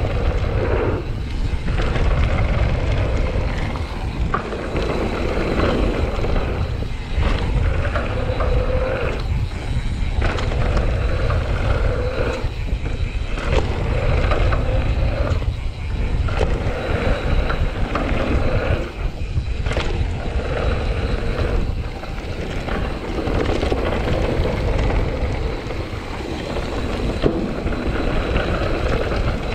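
Mountain bike riding fast down a dirt downhill trail: wind buffeting the mounted camera's microphone over the rumble of tyres on dirt, with frequent knocks and rattles from the bike over bumps.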